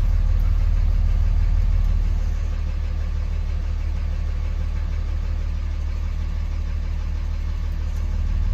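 2006 Dodge Ram's 5.9 Cummins straight-six turbo-diesel idling through its newly fitted Spelab exhaust cutout, heard from inside the cab: a steady, throaty low rumble. It drops a little in loudness about two seconds in and comes back up near the end.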